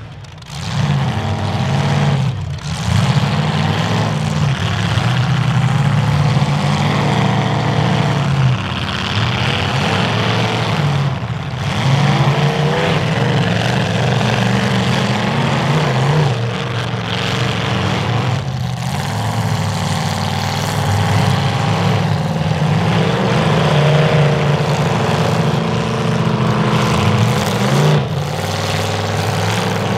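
Several demolition derby cars' engines running and revving hard, their pitch rising and falling again and again as the cars accelerate and back off in the mud.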